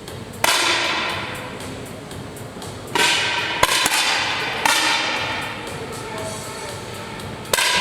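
Air rifle shots: four sharp cracks a few seconds apart, each followed by a ringing, echoing tail that fades over a second or more, with a couple of lighter clicks between the second and third.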